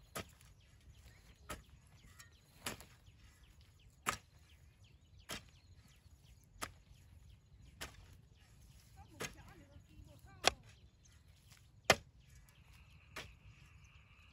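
Long-handled metal hoe striking into dry, loose soil in a steady rhythm, one sharp chop about every second and a quarter, eleven in all; two strokes in the second half are the loudest. A steady high-pitched hum comes in near the end.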